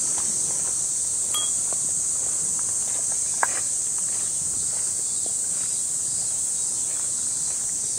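Summer insects droning in one steady high-pitched band through the whole stretch. Under it are faint crunching steps on gravel and a brief glass wind-chime ring about a second and a half in. A single sharper tick comes about three and a half seconds in.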